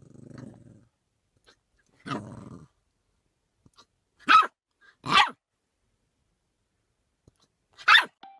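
A dog growling low twice, then giving three sharp barks spread over the last few seconds.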